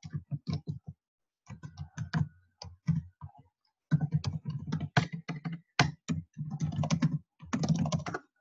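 Typing on a computer keyboard: quick runs of keystrokes with short pauses between them.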